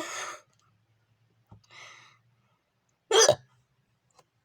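A child hiccuping: a sharp hiccup at the start trailing into a short breath, a soft breath in the middle, and a louder, sharper hiccup about three seconds in.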